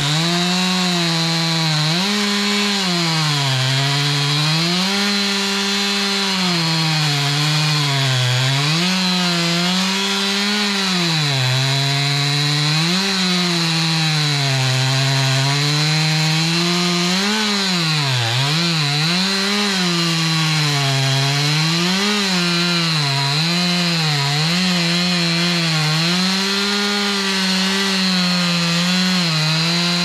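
Two-stroke chainsaw running at full throttle while cutting an oak log. Its pitch repeatedly sags as the chain bogs down in the wood and rises again as it frees, with a quick wobble of pitch about two-thirds of the way through.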